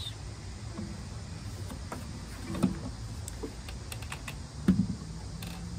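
Handling noise as an acoustic guitar is put down and leaned against a wooden rail: a few soft knocks and clicks, the two loudest about two and a half and four and a half seconds in, over a low steady hum.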